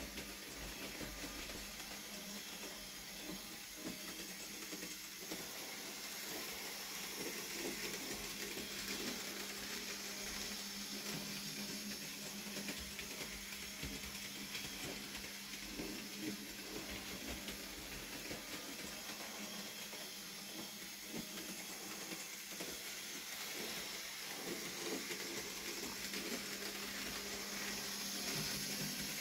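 Bachmann Skarloey model locomotive running on model railway track: a steady electric-motor whirr and hiss with faint clicking of wheels over the rails.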